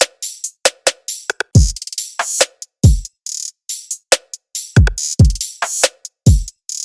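Drum machine beat loop: deep kick drums that drop in pitch, a snare or clap, and short hi-hat ticks, repeating with no melody.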